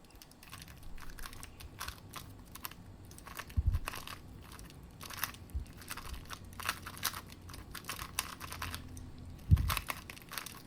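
X-Man Tornado magnetic 3x3 speedcube being turned fast in a solve: rapid, irregular clicking of the plastic layers. A dull thump comes about four seconds in and another near the end.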